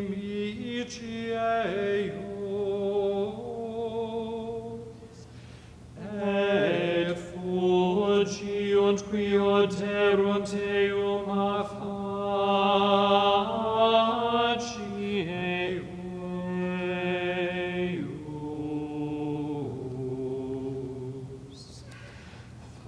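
Latin Gregorian plainchant sung by a single voice in long, flowing notes, with a short breath pause about five seconds in.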